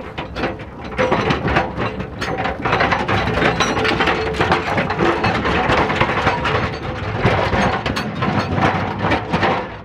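Mine cart rolling past close by on narrow-gauge rails inside a mine tunnel, a continuous metallic clattering and rattling. It starts about a second in and dies away just before the end.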